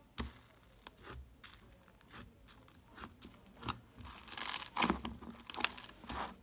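Fingers poking into and then pulling up a glossy, bubbly slime in a plastic tub: scattered small pops and crackles at first, then a denser, louder run of sticky crackling and tearing about four seconds in as the slime is lifted and stretched.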